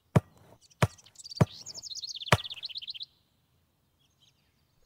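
Sound effect of a football being kicked: four sharp thumps a little under a second apart, with a bird twittering in high, quick trills from about one second in to about three seconds in.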